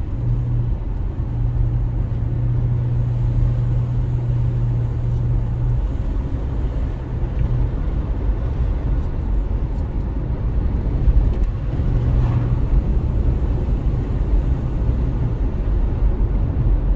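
Car driving at steady speed, heard from inside the cabin: a low engine hum over steady tyre and road rumble. The hum eases off about six seconds in and comes back for a while later on.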